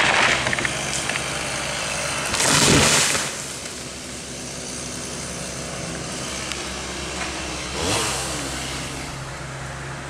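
A tall pine tree falling and crashing to the ground about two and a half seconds in, a loud rush of breaking branches that dies away after about a second, over the steady running of a small engine.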